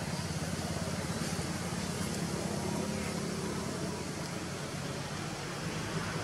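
Steady low hum over constant background noise, with no distinct events.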